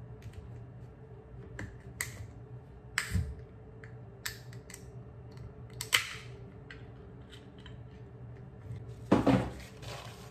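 Sharp clicks and scrapes of a straw being worked into the sealed lid of a can-shaped drink cup, a handful of separate snaps with the loudest about six seconds in. Near the end a paper tissue rustles.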